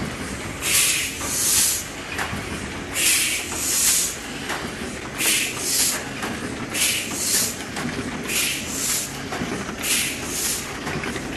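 Heidelberg Cylinder SBG die-cutting machine running, its mechanism clattering steadily, with short hisses of air from the sheet feeder repeating about once a second.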